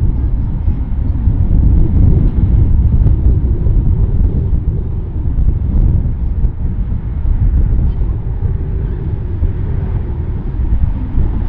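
Airbus A320 airliner's jet engines at low approach thrust, a steady loud low rumble as the jet passes low over the runway in the flare.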